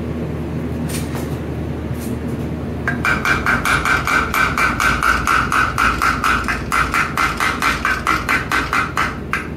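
Chipping hammer rapidly striking a fresh aluminum stick-electrode weld to knock off the slag, the plate clamped in a steel vise ringing with each blow. The strikes start about three seconds in, after a steady low hum, and come at about four to five a second.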